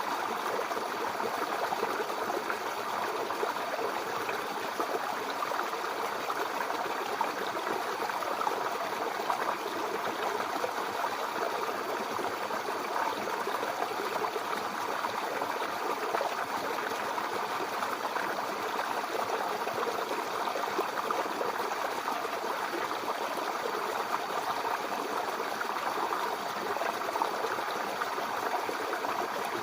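Shallow brook babbling and trickling over stones in a steady flow, with a dense splashing texture.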